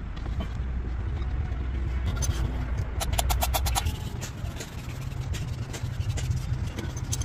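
An engine running steadily with a low rumble that steps up somewhat about two thirds of the way in. A quick run of sharp clicks sounds about three seconds in.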